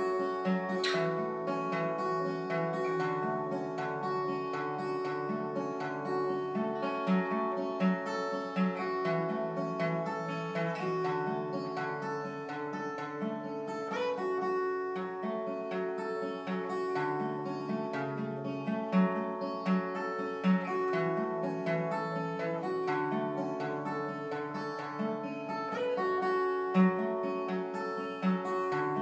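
Solo steel-string acoustic guitar playing an instrumental piece: picked notes ring over a bass note that repeats steadily.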